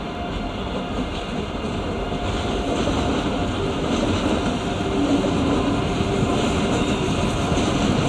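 ICE 3 high-speed electric train pulling slowly into the station, its running noise growing steadily louder as it approaches.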